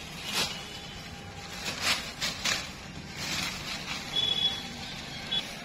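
Rustling of grass and a bag being handled as a caught climbing perch is put away, in several short bursts. Near the end come two brief high-pitched chirps.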